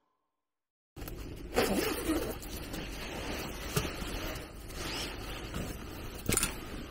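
Silent for about the first second, then fabric rustling and gear being handled, with a few light knocks, as a person moves about inside a canvas-covered truck bed.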